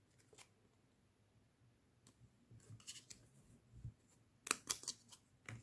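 Photo cards being handled and flipped: soft slides and light clicks of card against card, sparse at first, with the sharpest clicks about four and a half seconds in.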